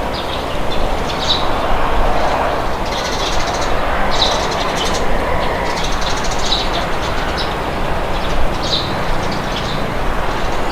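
Steady wind blowing, with birds chirping over it in short high calls every second or two.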